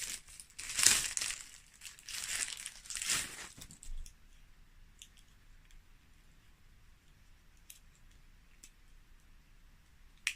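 Plastic packaging crinkling as it is handled, in several bursts over the first four seconds, then a few faint ticks and one sharp click near the end.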